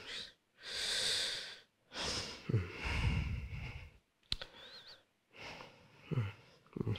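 A teenage boy breathing and sighing into a close podium microphone: two long breaths in the first few seconds, then a few small mouth clicks and a softer breath.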